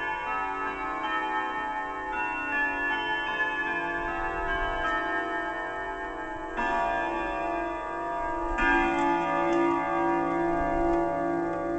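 German triple-chime wall clock striking on its chime rods: long ringing notes of a chime melody, then two heavier strikes about two seconds apart, over the ticking of the movement.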